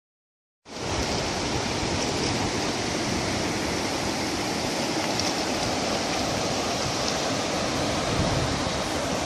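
Dead silence for under a second, then the steady rush of river water running over stones.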